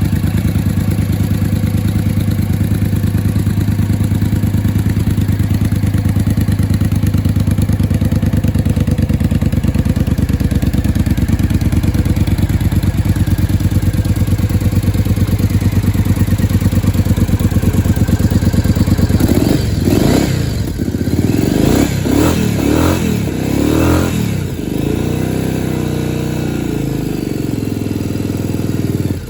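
2003 Triumph Bonneville Speedmaster's air-cooled parallel-twin engine idling steadily through its original Triumph exhaust, a full, dull sound. About two-thirds of the way in the throttle is blipped four or five times in quick succession, then the engine settles back to idle.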